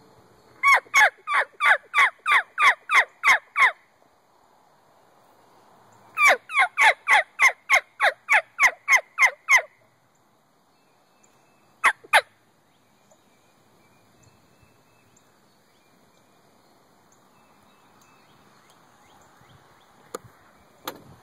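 Turkey yelping: two runs of about a dozen evenly spaced yelps, about four a second, each note dropping from high to low, followed a couple of seconds later by two more short notes.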